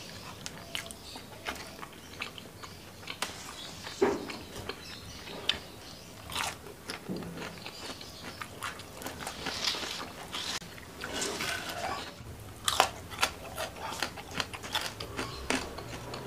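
Close-mic'd chewing and crunching of fried gourami fish, a run of irregular sharp crunches and clicks.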